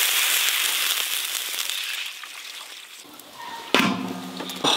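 Water poured into hot oil in an iron wok with frying crucian carp, hissing and sizzling loudly, then dying down over about three seconds. Near the end the metal lid goes on the wok with a ringing clank, and a second knock follows.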